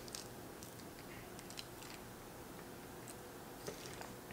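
Faint, scattered wet clicks of pancakes being eaten by hand and chewed close to the microphone.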